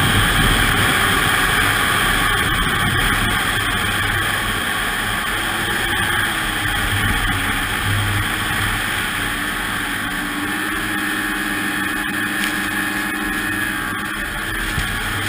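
Ski-Doo snowmobile engine running steadily at speed, mixed with wind rush over a helmet-mounted microphone. The engine note grows clearer and sits slightly higher in the second half.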